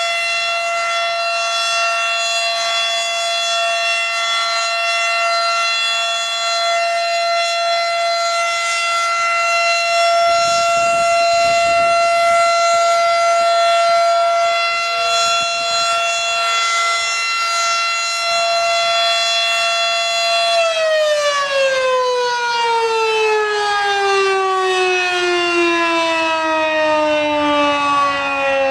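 Federal Signal Model 5 outdoor warning siren sounding one steady, high tone at full speed for about twenty seconds, then shut off and winding down, its pitch falling steadily through the rest.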